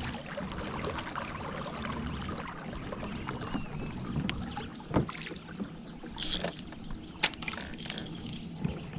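Fishing kayak on calm water: a steady faint hiss with scattered small knocks and clicks of gear against the hull, the loudest a single sharp knock about five seconds in. A brief high chirp sounds a little after three seconds.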